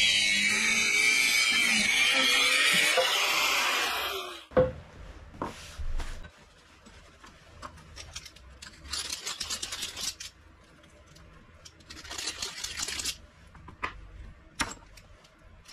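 A power tool running loudly and steadily, cutting off about four seconds in. It is followed by a few sharp knocks and two short bursts of scraping.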